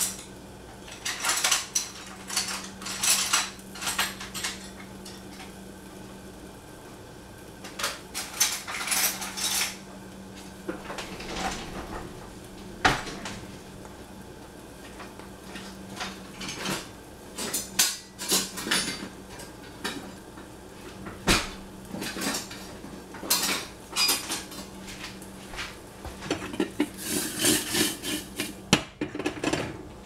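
Metal cookware and utensils clinking and clattering in short irregular bursts every few seconds, over a faint steady low hum.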